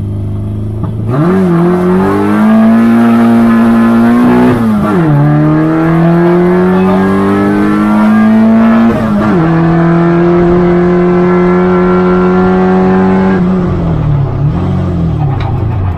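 Peugeot 106 race car's carburettored 1.4-litre four-cylinder engine held at steady revs, then launching about a second in and pulling hard uphill. The revs climb and drop sharply at two upshifts, about five and nine seconds in, then fall away as the throttle is lifted near the end.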